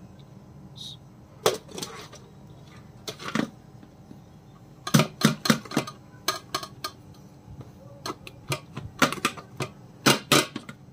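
Metal bowl knocking and clinking against an enamel plate as cooked rice is turned out of it: a series of sharp clatters, bunched in clusters, the busiest stretch about halfway through and again near the end.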